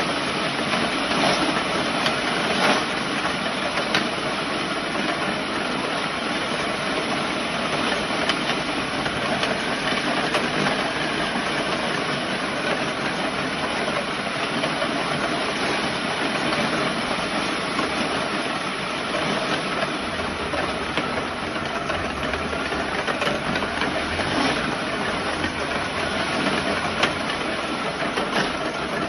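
Dog treadmill running: a steady motor and belt noise, with a few faint clicks.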